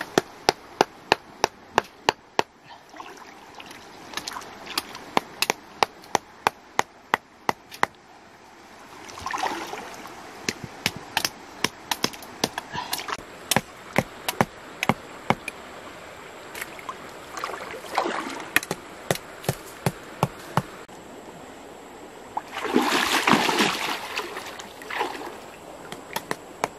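Shallow stream water splashing around a person wading and working fern branches and wooden stakes into the streambed. Many sharp knocks come about three a second in the first third, then more sparsely, with louder splashes now and then.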